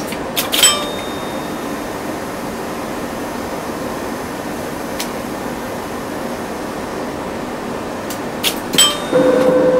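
Electromechanical relays click at the start, then the scale-model traction lift's DC motor and worm-gear sheave run with a steady hum as the car travels. More relay clicks come near the end, followed by a louder, pitched motor hum.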